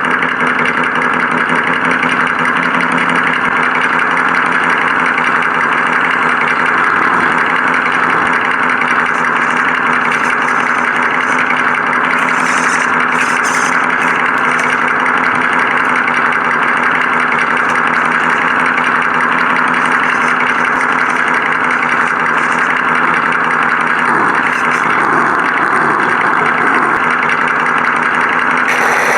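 Simulated car engine sound from an FMS RC car's sound module, a steady idling drone played through a small speaker, with a few brief high scraping hisses about halfway through.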